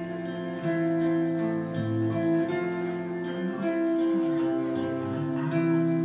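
Live rock band playing an instrumental passage between sung lines: sustained guitar chords over bass notes, changing every second or two.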